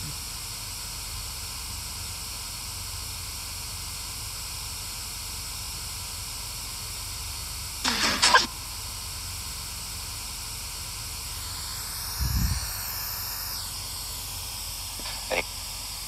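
Steady hiss of spirit box static, broken about eight seconds in by a brief garbled voice fragment. A low thump follows about four seconds later.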